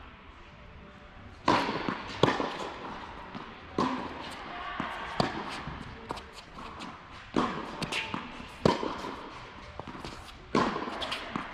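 Tennis rally on an indoor hard court: sharp cracks of racket strings hitting the ball and the ball bouncing, one every second or two, echoing in the large hall. The first hit comes about one and a half seconds in.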